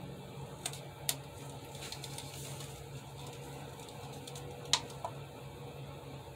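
Light handling noise over a steady low hum: a few small sharp clicks or taps, the loudest near the end, with a soft rustle between them.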